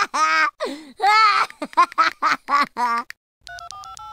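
A cartoon boy laughing hard, a quick string of high cackles. Near the end come several short mobile-phone keypad tones, each a pair of steady pitches, as buttons are pressed to dial.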